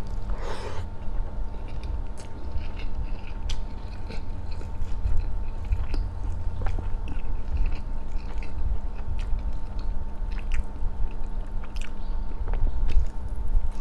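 Close-miked chewing and biting of grilled chicken eaten by hand, with scattered wet clicks and smacks, over a faint steady hum.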